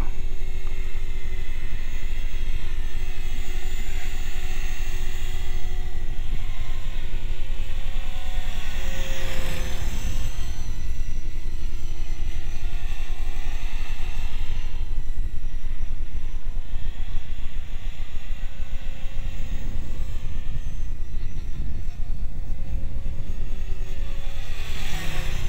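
HK500CMT radio-controlled model helicopter flying: a steady rotor and motor whine whose pitch wavers and slides up and down as it manoeuvres.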